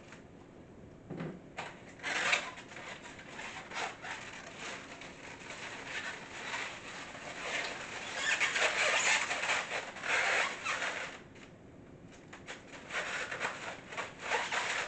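Styrofoam egg carton being handled, the foam squeaking and rubbing against itself in irregular scratchy bursts, heaviest in the second half.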